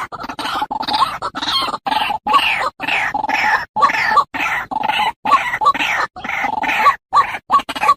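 Birds calling in short, repeated squawks, chopped up by many abrupt cuts to silence.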